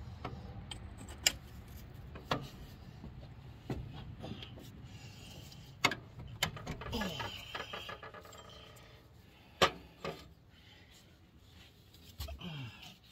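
Hand ratchet and socket working the Jake brake housing bolts on a Caterpillar 3406 diesel engine: the ratchet clicks, and about five sharp metal clinks of the socket and tools against the engine stand out, over a steady low hum.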